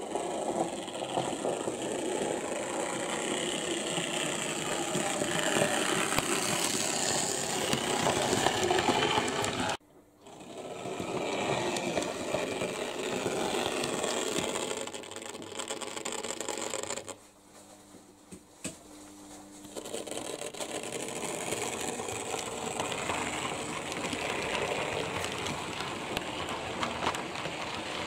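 Model trains running on layout track, a continuous fast mechanical rattle of small motors and wheels. It breaks off abruptly about a third of the way in, then returns, and is quieter for a few seconds past the middle.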